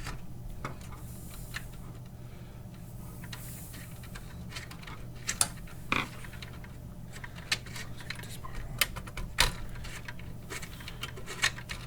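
Scattered clicks and light knocks of metal and plastic parts being handled and pried at while a payphone's internal part is worked loose, sparse at first and coming in a quicker run in the last few seconds, over a steady low hum.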